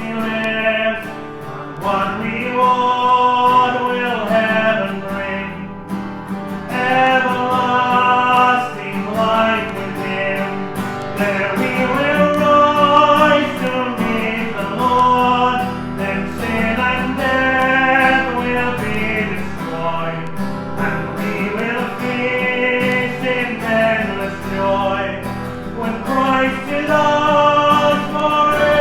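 Music: singing with guitar accompaniment.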